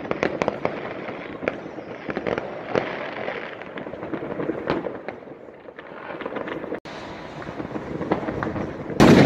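Fireworks going off across the city: a continuous crackle of many scattered pops and bangs over a steady hiss, with one much louder bang near the end.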